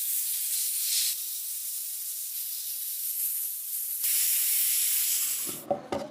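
A steady, high hiss of spraying that grows louder twice and then cuts off near the end, followed by a few short knocks.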